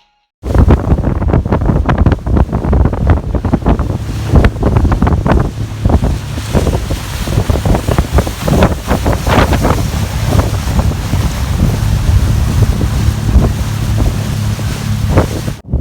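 Strong wind buffeting the microphone over a small boat's engine running steadily, with waves splashing against the hull. It starts abruptly about half a second in and cuts off just before the end.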